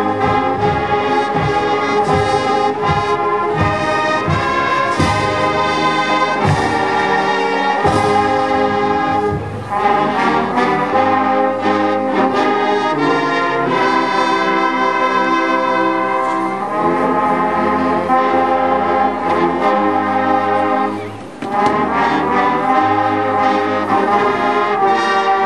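A high school marching band plays slow, held brass chords, with drum hits through the first several seconds. The sound breaks off briefly twice between phrases, about ten seconds in and again after about twenty seconds.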